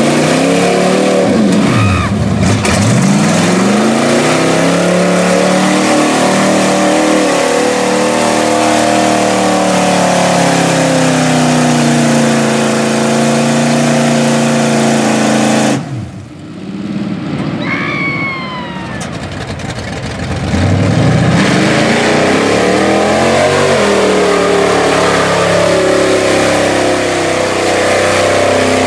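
Engines of lifted square-body Chevrolet mud trucks revving hard through deep mud, the pitch climbing and falling again and again as the drivers work the throttle. Midway it drops quieter for a few seconds, with a few short falling high tones, before the revving comes back.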